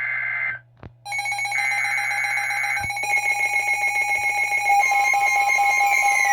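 Emergency Alert System alert tones: a burst of the warbling SAME data tone cuts off about half a second in, then after a short gap steady high electronic alert tones start, with another data burst over them. About five seconds in a further tone joins and pulses, and falling siren-like sweeps start near the end.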